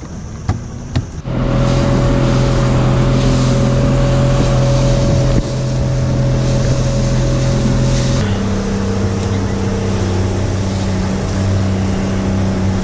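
Motorboat engine running steadily, cutting in abruptly about a second in after two short clicks; its note changes about eight seconds in.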